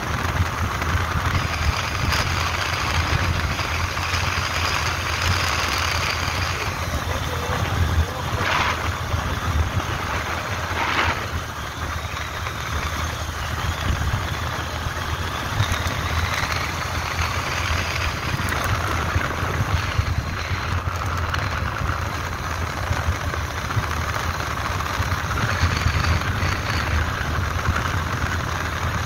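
Vehicle engine running steadily while driving, with road and wind noise.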